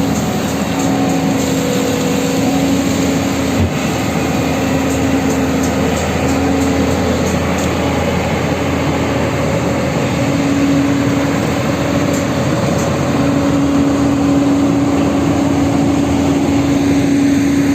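Loud road traffic noise with a running engine, its steady hum breaking off and returning several times, then falling in pitch near the end.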